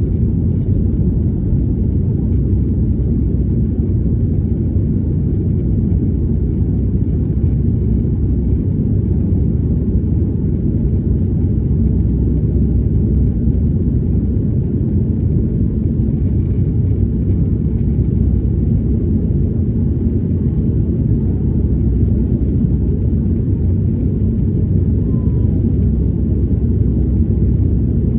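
Jet airliner engine and airflow noise heard from inside the passenger cabin: a loud, steady low rumble.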